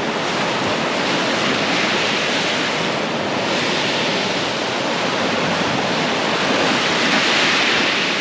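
Sea surf breaking and washing on a beach: a steady rush that swells and eases every couple of seconds as the waves come in.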